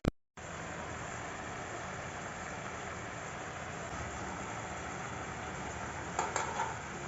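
Steady hiss and low rumble of chicken, potato and carrot cooking in a pan, with a few short clinks of a utensil against the pan about six seconds in.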